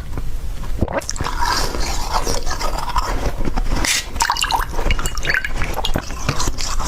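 Slushy ice being bitten and chewed, a wet crunching made of many small crackles and snaps.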